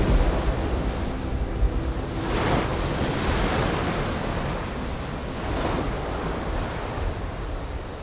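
Heavy ocean surf crashing against rocky sea cliffs: a continuous rush of churning water, with waves surging louder about two and a half seconds in and again near six seconds.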